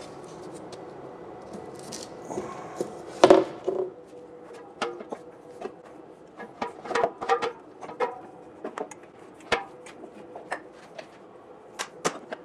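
Handling knocks and clinks as a steel gas cylinder and a shelf panel are fitted into a steel stand: one loud knock about three seconds in, then an irregular run of light knocks and clicks.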